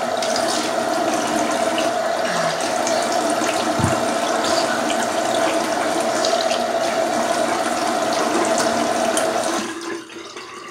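Bathroom sink tap running into the basin while water is splashed onto a face by hand. The flow is shut off near the end.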